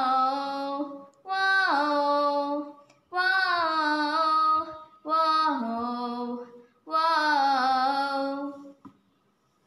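A teenage girl singing unaccompanied: five held, wordless 'whoa' phrases with short breaths between them, the pitch bending within each phrase, ending near the close.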